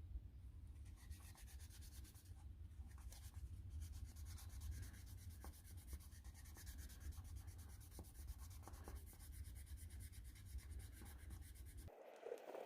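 Faint sanding of a wood and glow-in-the-dark resin pendant: soft, even rubbing with a few light ticks, over a low steady hum that cuts off near the end.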